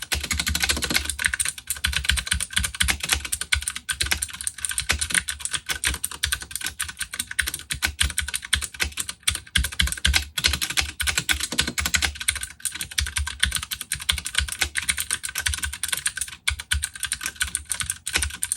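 Fast, continuous typing on a Ducky One 2 Mini mechanical keyboard with clicky Cherry MX Blue switches, a dense run of sharp key clicks and clacks.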